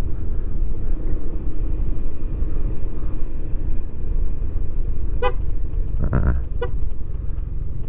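Steady engine and road rumble from a Yamaha XMAX 250 scooter on the move, with a short horn toot about five seconds in and another about a second and a half later.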